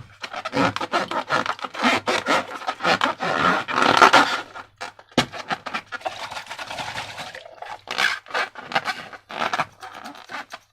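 Slime being squeezed and worked by hand with transparent balloons: a dense, irregular run of sticky crackles and squelches, with a sharp click about five seconds in.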